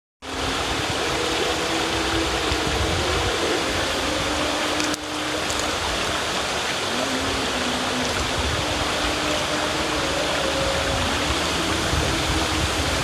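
A river's water rushing steadily, a dense, even wash of sound, with faint held low notes underneath. The level dips briefly about five seconds in.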